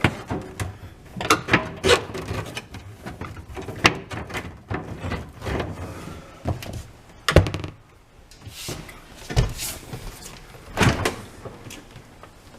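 Irregular knocks, bumps and scrapes of a dishwasher being worked into its cabinet opening, the loudest knock about seven seconds in.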